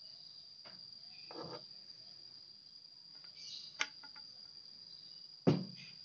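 A steady high cricket trill in the background, under the handling of metal bicycle fork parts: a short rustle about a second and a half in, a sharp click near four seconds, and a loud knock about five and a half seconds in.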